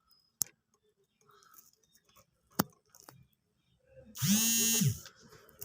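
Two light clicks as a charging cable's plug is pushed into a phone, then a short buzz of the phone's vibration motor lasting just under a second, the phone signalling that charging has started on the repaired cable.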